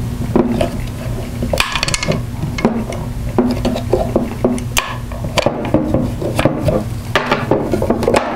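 Handling noise from assembling an encoder shield housing: a series of small clicks, knocks and rubs as a multi-tool turns a connector plug end in the housing and the housing is laid down and handled on a table.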